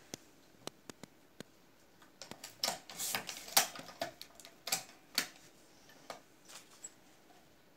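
Sharp metal clicks and clacks of a semi-automatic cigarette-rolling machine being worked by hand, its lever and slide snapping as a tube is filled. The clacks come irregularly, bunched and loudest a little past the middle.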